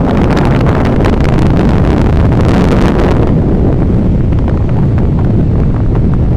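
Strong wind buffeting the microphone: a loud, steady rumble with irregular crackles as gusts hit it.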